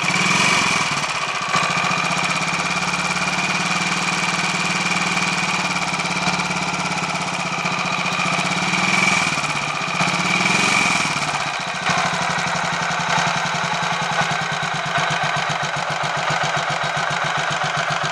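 Royal Enfield 500 Machismo single-cylinder engine running, speeding up briefly a few times in the first half and then settling to a steady, even idle. The earlier whirring from the starter freewheel gear is gone, and it sounds a lot better now that a small spindle with an oil hole has been put back the right way round.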